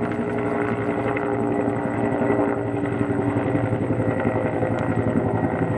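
A motor or engine running steadily, with a fast even pulse under a held hum.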